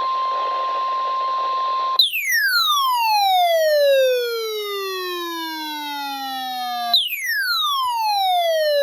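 NOAA Weather Radio warning alarm tone over radio static: a steady tone near 1 kHz. About two seconds in, the static cuts off and two long falling electronic tones follow, each gliding from high to low over about five seconds.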